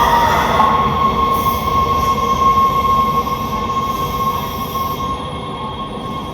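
Train running on the rails with a steady rumble and a sustained high squeal from the wheels, both growing gradually quieter.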